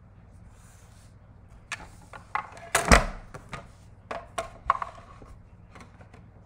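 A plastic die-cutting machine is set down on a wooden table with one loud thump. Several lighter knocks and clacks follow as clear plastic cutting plates are handled and pushed into it.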